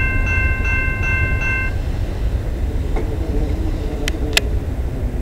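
Railway crossing bell ringing about three times a second, then stopping about a second and a half in, over the low rumble of a departing VIA Rail passenger train. Two sharp clicks near the end.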